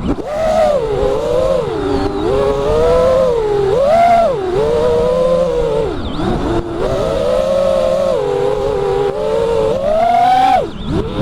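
Motors and propellers of an FPV quadcopter whining, heard through the onboard camera's microphone, the pitch rising and falling with the throttle. The pitch drops off sharply, as the throttle is cut, about six seconds in and again near the end.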